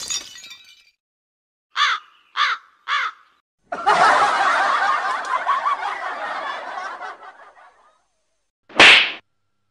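Three short calls, each falling in pitch, then laughter for about four seconds, then a short loud burst near the end.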